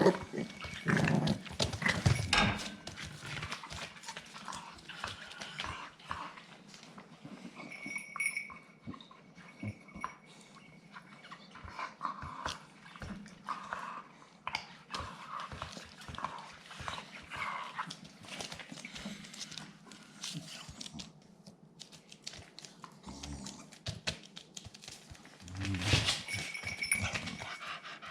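Staffordshire bull terrier puppies making dog sounds amid many short clicks and scuffles. The loudest bursts come at the start and again near the end.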